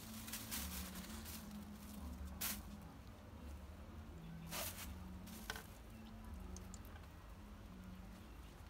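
Faint rustling and crinkling of a sheet of paper and plant stems handled in the hands, in a few short scrapes, over a faint low hum.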